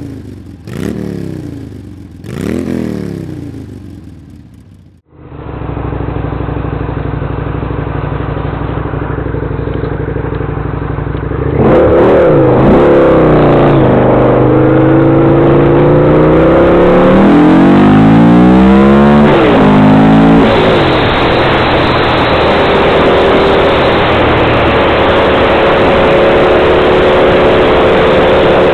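Three falling whooshes, then about five seconds in a Harley-Davidson V-Rod's V-twin engine running steadily at low revs. About twelve seconds in it gets louder, its pitch rising and dropping several times as the bike accelerates through the gears, then holds steady at riding speed with wind and road noise. Recorded through a cheap sunglasses camera's microphone, which cuts off the high end.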